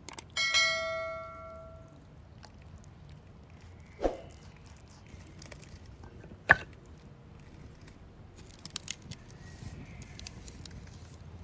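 Cooking utensils handled: a ringing clink near the start that fades over about a second and a half, then two sharp knocks a couple of seconds apart and a few light clicks near the end.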